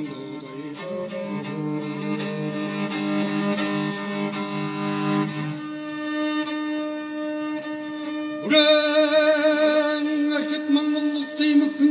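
Morin khuur (Mongolian horsehead fiddle) bowing long sustained notes over a steady held lower note. About two-thirds of the way in it gets louder and the melody note wavers with vibrato.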